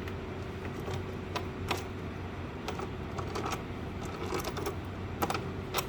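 Irregular small clicks and taps of screws being handled and pushed through the holes of a plastic frame and box.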